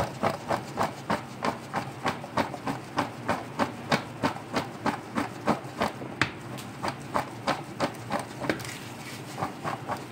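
Raw potato fries dusted with cornflour being shaken and tossed in a metal mesh sieve to coat them, a rhythmic shuffling and rattling at about three shakes a second. The shaking eases a little past halfway, then picks up again.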